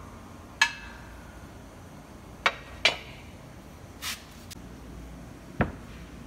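Steel press tooling clinking on a shop press as the socket, support and aluminium cover are handled: a ringing clink about half a second in, two more near the three-second mark, and a duller knock near the end.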